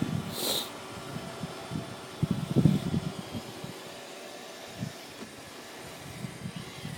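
Roomba 580 robot vacuum running with a steady fan-like motor hum, broken by a few irregular low thumps and a short hiss near the start.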